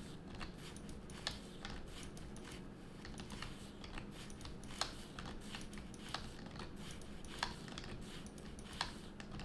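Computer keyboard keys and mouse buttons clicking irregularly as a 3D mesh is edited, a few clicks louder than the rest, over a faint steady low hum.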